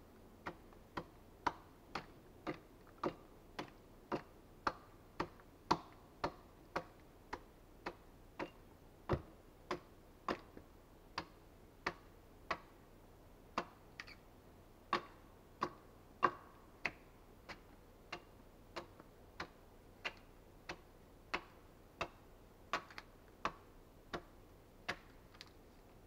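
Axe hewing the side of a log into a beam: a steady run of sharp chopping knocks, about two a second, with a brief pause about halfway.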